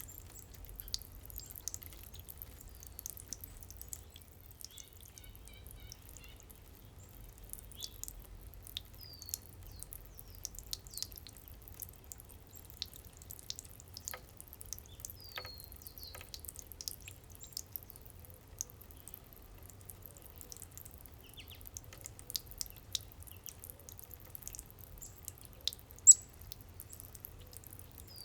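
Backyard water fountain dripping and splashing in irregular small ticks, with a few short, falling high bird chirps; a sharp high sound near the end is the loudest.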